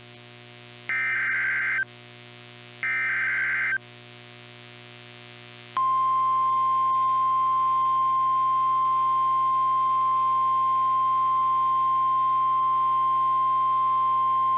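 NOAA Weather Radio Emergency Alert System signal. Two harsh, buzzing SAME data bursts about a second long and a second apart are followed by a short pause. Then a steady single-pitch warning alarm tone sounds for about nine seconds, signalling that an emergency warning message is about to be read.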